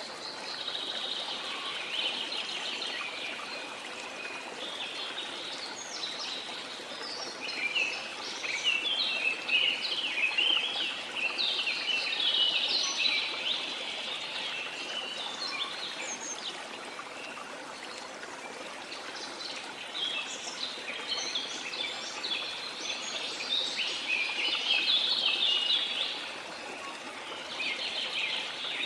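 Small birds chirping and singing in quick, overlapping phrases over the steady rush of a stream: a nature-ambience background track.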